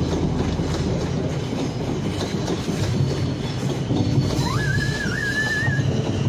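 South Western Railway Class 455 electric multiple unit running along curved track, its wheels making a steady rumble on the rails. A brief high, wavering squeal comes in about four and a half seconds in and lasts a little over a second.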